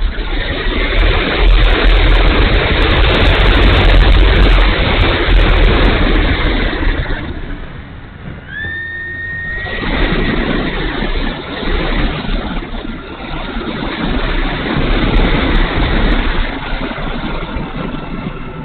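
Heavy wind rushing and buffeting over the wing-mounted camera's microphone on a Hobbyking 800mm Hawker Tempest RC plane in flight. About eight seconds in the rush eases and the electric motor's whine rises in pitch and holds, before the wind noise builds again.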